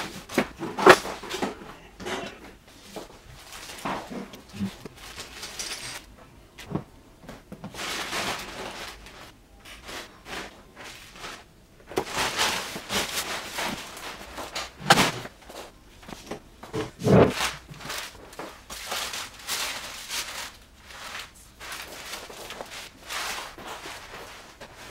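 Art supplies being handled and set down on a sheet-covered table: irregular knocks, light thuds and rustling, with two louder thumps a couple of seconds apart past the middle.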